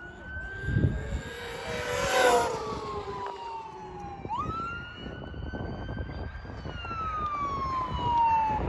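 Traxxas E-Revo 2.0 RC truck's brushless motor and drivetrain whining on a 6S LiPo. The pitch glides slowly down, with a louder rush near two seconds. About four seconds in it climbs sharply as the truck accelerates, then falls slowly again as it eases off.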